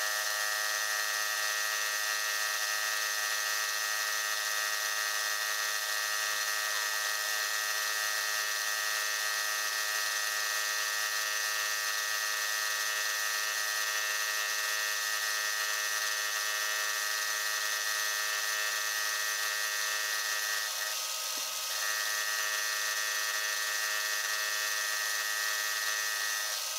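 Milling machine with a thread-milling attachment running at a steady speed, giving a steady whine as a rotating cutter mills a thread on a workpiece that turns slowly in the attachment's three-jaw chuck. The whine dips and wavers briefly about three-quarters of the way through.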